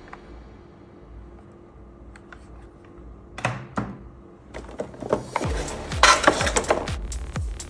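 Clicks, knocks and a short clatter of hard plastic parts of a toy gel blaster being handled. An electronic dance beat comes in about five seconds in.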